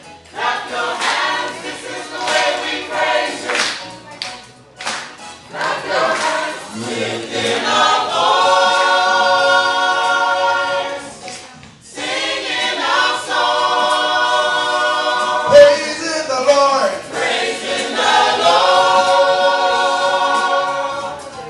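Gospel choir singing in several parts, with short rhythmic phrases and hand claps at first, then long held chords three times. A single sharp thump about three-quarters of the way through is the loudest moment.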